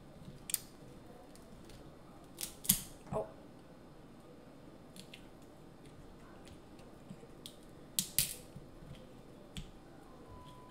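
King crab leg shell cracked and snapped apart by hand: a few sharp cracks, the loudest pair near three seconds in and another pair around eight seconds, with small clicks of shell in between.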